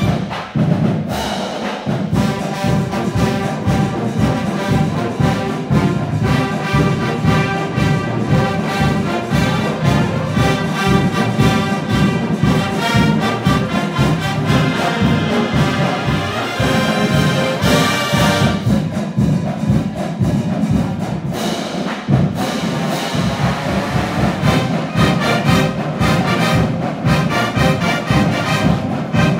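Marching band playing live, brass with sousaphones carrying the melody over a steady beat of drums.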